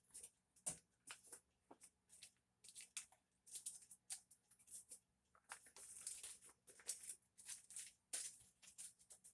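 Faint, irregular rustling and light clicks of things being handled in a kitchen, like paper or wrapping crinkling, with short scrapes coming in quick clusters.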